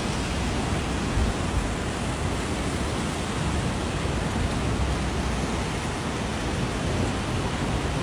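Heavy rain and rushing floodwater: a steady, unbroken rushing noise with a deep low rumble underneath.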